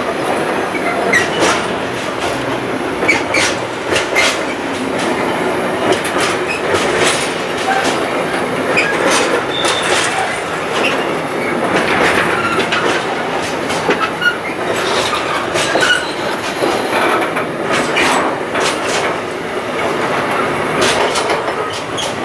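Intermodal freight train of pocket wagons carrying semi-trailers rolling past: a steady rumble of wheels on rail, with irregular clatter and clicks as the wagons pass.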